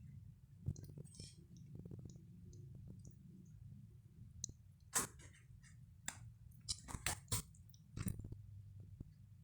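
Kittens playing: faint, scattered clicks and scratches, the sharpest about five, seven and eight seconds in, over a steady low hum.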